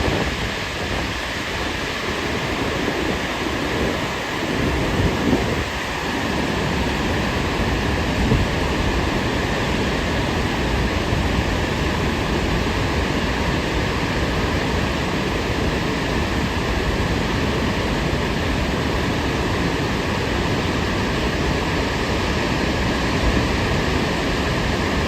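Steady roar of stormy sea and wind, with a few heavier low rumbles in the first ten seconds.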